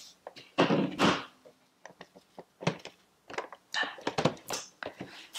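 Cardboard Funko Pop boxes being handled and moved about on a table: a string of light knocks and thunks, the loudest a little over half a second in.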